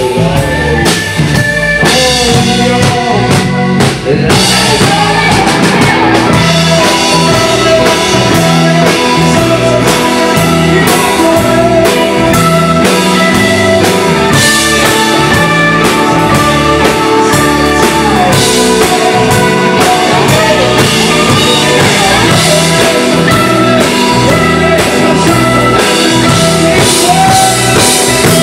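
A rock band playing live, loud and steady, with drum kit and guitar to the fore.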